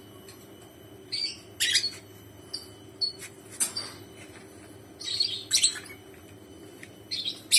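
Lovebird giving short, high, sharp chirps, one every second or so.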